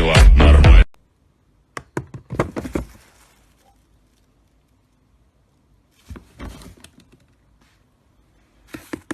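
Loud music stops abruptly about a second in. After it come a few short clusters of light knocks and clicks, with quiet between them.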